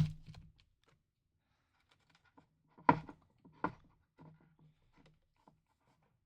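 Clicks and knocks of small hard objects being handled on a desk: a sharp knock at the start, two more about three seconds in, and lighter taps between.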